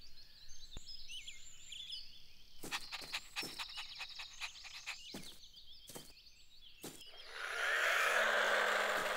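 Cartoon garden ambience with faint bird chirps and a series of sharp clicks, then a small remote-controlled toy car's electric motor starts up about seven seconds in and runs with a steady buzzing whir.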